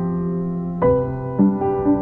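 Background piano music: slow sustained chords, with new notes struck about a second in and again about half a second later.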